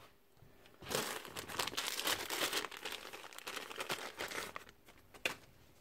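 A small clear plastic bag crinkling as it is handled and opened, with one short knock near the end.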